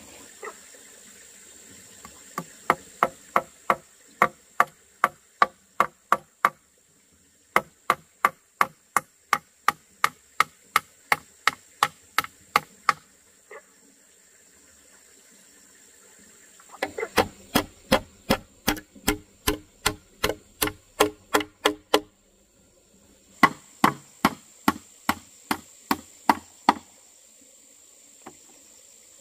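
Repeated chopping strikes on wood, about two to three a second, in four runs with short pauses between; the third run is faster than the others.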